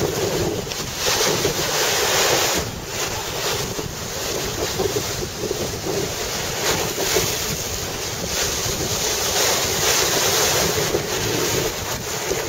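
Sea waves washing onto a beach, with wind blowing across the microphone. The rush swells and eases every few seconds.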